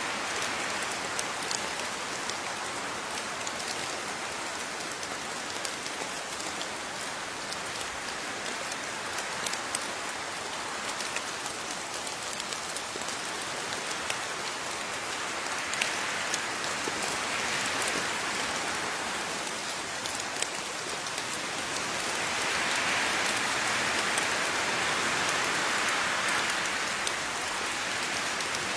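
Steady rain falling, with scattered close drops ticking on a surface; the downpour swells a little heavier about two-thirds of the way through.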